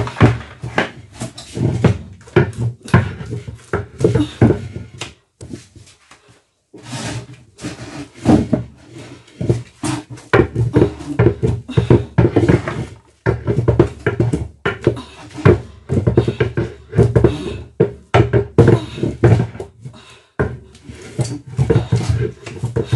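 Wooden pestle working a sticky mass of pounded yam in a wooden mortar: rapid, repeated dull thuds and wet slaps as the dough is pushed and turned around the mortar. This is the turning step, called rin in Yoruba, done once the yam is pounded smooth. The strokes stop briefly about five seconds in and again near the end.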